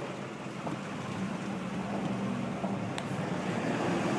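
A vehicle driving, its engine and tyre noise heard from inside the cabin as a steady low drone.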